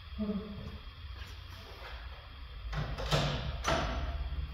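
A few sharp metallic knocks and clanks, about three seconds in and again half a second later, as hand tools are handled and one is picked out, over a steady low hum.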